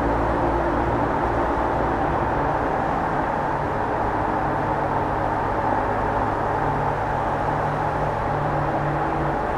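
Yamaha R7's 689 cc parallel-twin engine with its stock exhaust running steadily while the bike is ridden, the engine note shifting a little about halfway through.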